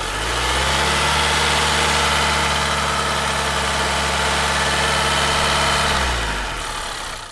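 Car engine idling steadily, its pitch rising briefly as it comes in and sinking as it fades out near the end.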